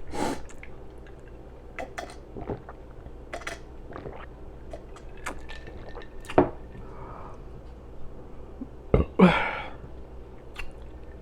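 Wet mouth sounds at close range: scattered lip smacks and tongue clicks from eating, with a louder click about six seconds in. About nine seconds in comes a short throaty sound that falls in pitch.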